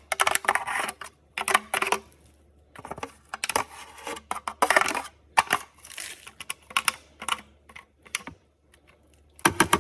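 Back of a chopstick scraping and tapping inside a cordless vacuum's plastic dust bin to dislodge packed-in dust: irregular clusters of clicks and scrapes with brief pauses between them, the busiest near the end.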